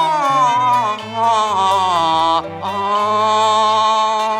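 Cantonese opera singing with a Chinese instrumental ensemble: a long, drawn-out melismatic vowel that bends and wavers in pitch, then settles into a steady held note, over a stepping low accompaniment line.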